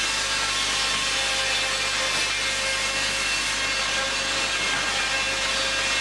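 Sawmill machinery running steadily: spinning saws and drive motors make a continuous loud noise with a few steady whining tones.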